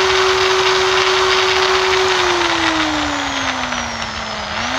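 Electric buffing machine's motor running with a steady whine, then slowing with a smoothly falling pitch from about two seconds in as its speed-control dial is turned down.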